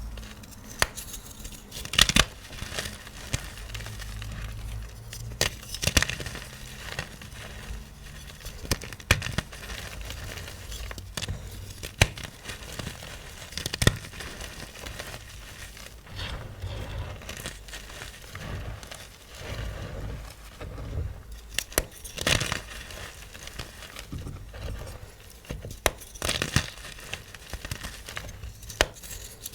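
Blocks of magnesium carbonate gym chalk being crushed, crunching and crumbling in an irregular run of crackles, with several louder crunches spread through.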